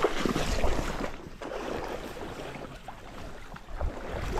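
Wind buffeting the microphone over small waves lapping at a pebble lakeshore: a steady rushing that eases after the first second, with a few faint clicks.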